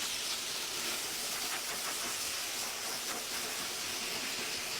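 Blow dryer running steadily, a continuous even hiss of blowing air.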